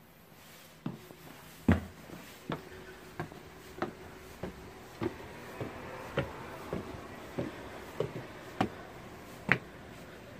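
Footsteps climbing concrete stairs, a steady pace of about one and a half steps a second, with a louder step about two seconds in and another near the end.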